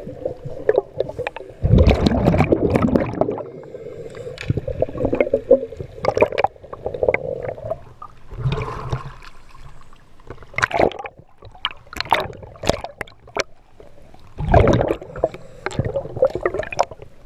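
Water gurgling, sloshing and splashing around a spearfisher's action camera as it moves underwater and through the surface, with scattered clicks and louder rushes of water about two seconds in and again near the end.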